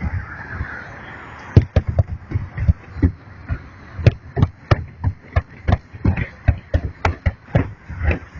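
Fireworks bursting in a rapid, irregular barrage of sharp bangs, several a second, after a short lull near the start.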